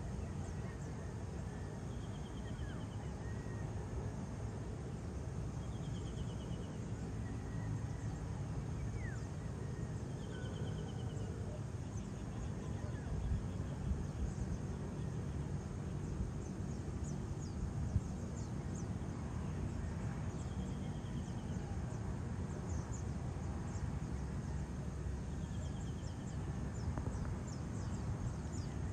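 Outdoor dawn ambience: a steady low rumble with birds calling over it, a short buzzy call repeating about every four seconds and scattered high thin chirps.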